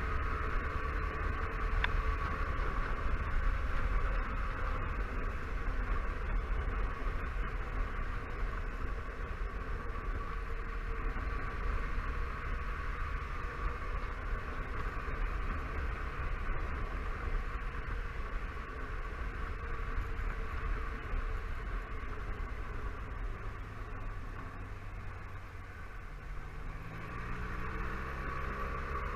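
Honda Silverwing 600 maxi-scooter's parallel-twin engine running on the move, under steady wind and road noise. Near the end the engine note rises as the scooter speeds up.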